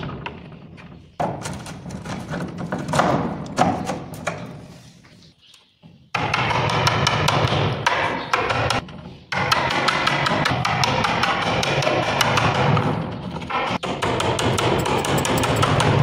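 Chisel knocking and cutting into the wooden edge of a door as a lock mortise is chopped out, heard as separate knocks in the first few seconds. Background music plays through, dropping out briefly about five seconds in and then coming back loud and steady.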